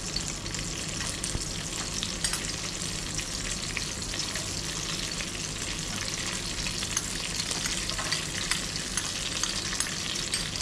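Curry leaves sizzling and crackling in hot oil in a non-stick wok, with chopped garlic tipped in partway and frying along with them.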